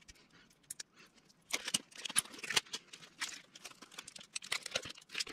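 Plastic drinking straws and tape being handled and pressed back together: light, irregular clicks and crinkles that start about a second and a half in.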